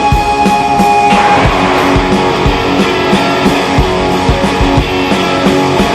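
Trailer music: guitar-led rock over a steady drum beat, with a denser, fuller layer coming in about a second in.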